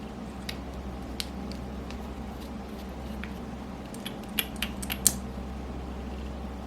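Slime being handled and kneaded, making scattered small clicks and pops, with a quick cluster of sharper clicks about four seconds in, over a steady low hum.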